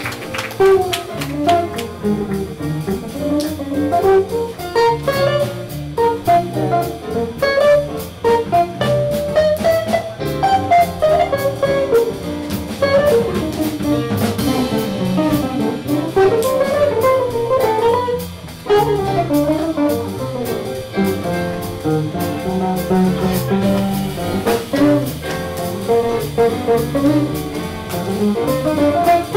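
Small swing jazz band playing live: saxophone and trumpet lines over archtop guitar, piano, upright bass and drum kit, with steady cymbal strokes keeping time. The band drops out briefly about 18 seconds in, then comes back in.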